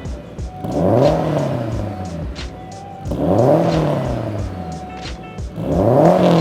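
Subaru Impreza WRX STI turbocharged flat-four through a straight-pipe catback exhaust, revving up and falling away three times, about three seconds apart.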